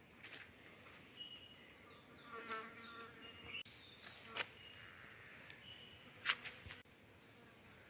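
Faint rainforest insects buzzing, with a few short, high chirps and some light clicks.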